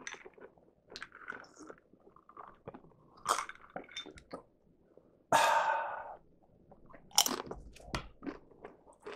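Close chewing and crunching of tortilla chips dipped in chili, with scattered crisp bites. A louder noisy burst lasting under a second comes about five seconds in, and another sharp crunch a couple of seconds later.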